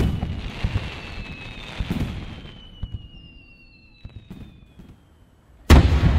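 Fireworks bursting, with bangs at the start and about two seconds in, then a crackle that dies away over several seconds while thin falling tones sound. A sudden loud bang comes near the end.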